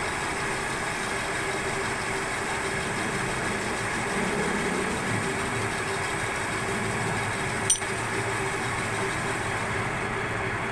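Metal lathe running with a steady hum and a held tone, with one sharp click about three quarters of the way through.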